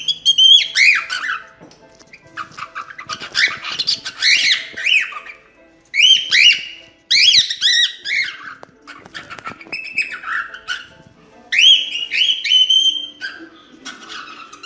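Cockatiel singing: quick, arching whistled notes and chirps in phrases of one to three seconds, separated by short pauses.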